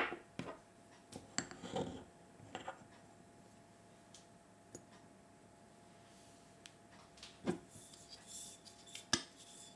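Small ceramic kitchenware handled on a wooden table: a sharp knock as a ceramic pot is set down, then light scrapes and clicks of a teaspoon scooping sugar and tipping it into a dish of sauce, with a few more scattered clicks near the end.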